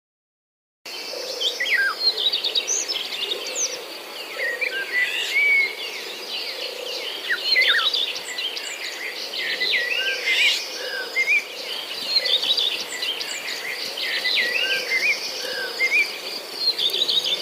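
Many birds singing and calling at once, a busy chorus of quick chirps and whistles that starts about a second in.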